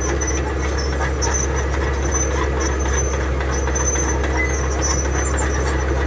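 Komatsu crawler bulldozer's diesel engine running steadily under load while its blade pushes a pile of gravel, with faint scattered clicking and rattling on top.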